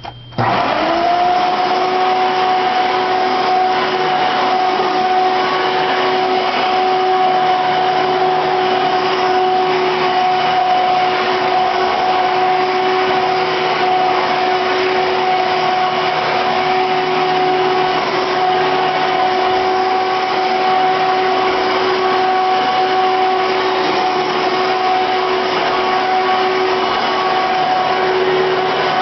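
Hoover Runabout upright vacuum cleaner, a 12-amp soft-bag Hoover Elite, switched on: its motor spins up in a fraction of a second to a steady whine over a loud rush of air, then runs steadily. It is running without its brush roll and brush plate.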